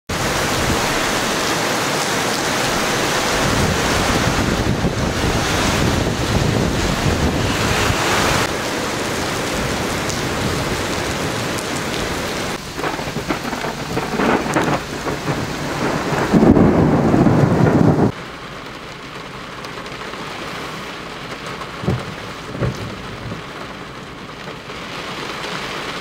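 Heavy rain in a severe thunderstorm, with a loud steady rush of rain and wind that turns into uneven surges and builds to a loud low rumble, which cuts off suddenly about two-thirds of the way through. After it the rain is softer, with a couple of short knocks.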